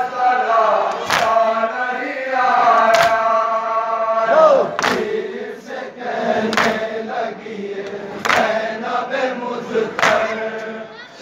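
A crowd of men chanting a noha (mourning lament) in unison, with a sharp collective chest-beat (matam) about every two seconds, six beats in all.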